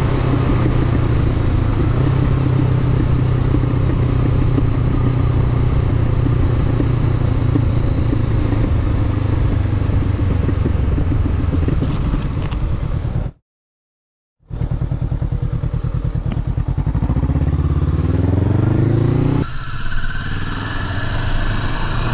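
Motorcycle engine running steadily under way, heard from the rider's camera with road and wind noise; the bike is a Honda CBR500R with a parallel-twin engine. About halfway through the sound cuts out for a second. When it returns the engine note rises as the bike accelerates, then changes to a different motorcycle's engine near the end.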